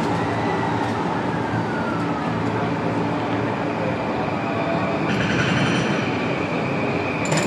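A train running past, a steady rumble with a whine that falls in pitch during the first two seconds, then a steady high tone.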